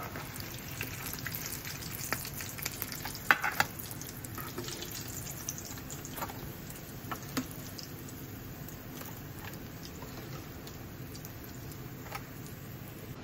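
Breaded croquettes deep-frying in hot oil: a steady sizzle with scattered crackles and pops, a few louder ones about three seconds in.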